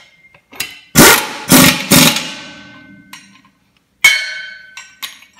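Pneumatic impact wrench hammering in short bursts, three in quick succession and one more a couple of seconds later, tightening bolts into a steel brake drum. A ringing tone from the drum lingers after the bursts.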